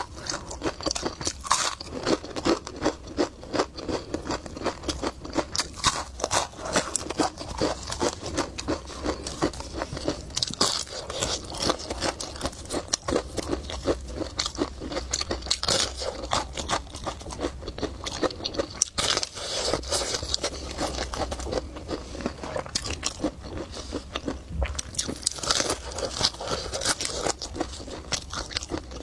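Close-miked eating: continuous chewing and biting, with dense wet mouth clicks and crunches.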